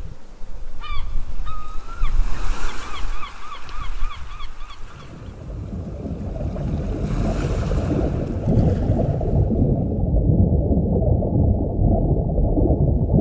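Ocean waves and wind, with a bird giving a quick series of short, repeated calls during the first few seconds. About five seconds in, this gives way to a dense, muffled low rumble of water heard from underwater.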